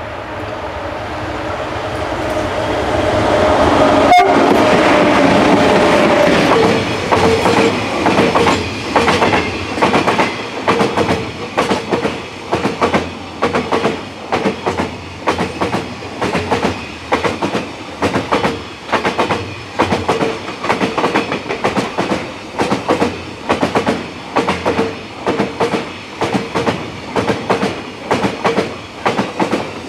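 Class 18E electric locomotive approaching and passing close by, its running noise building to a peak about four seconds in with a sharp crack. Then a train of empty container flatbed wagons rolls past with a steady clickety-clack of wheels over the rail joints, a little more than one clack a second.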